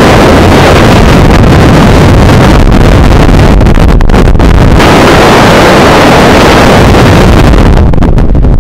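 Strong wind buffeting the microphone: a loud, continuous rumble with hiss on top, the hiss easing near the end.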